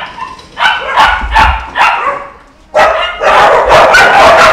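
Rescued stray dogs barking: four sharp barks in quick succession, then, a little under three seconds in, many dogs barking at once in a loud, continuous chorus.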